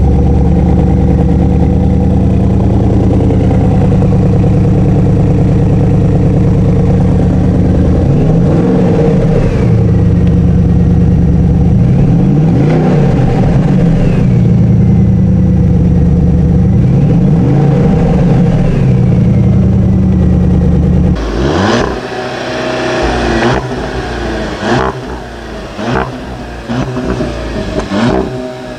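Porsche Cayenne Turbo S twin-turbo V8 running loud and steady through its quad exhaust, revved up and back down three times. About 21 seconds in, a SEAT Leon Cupra's turbo four-cylinder takes over, revved several times with sharp cracks between the revs.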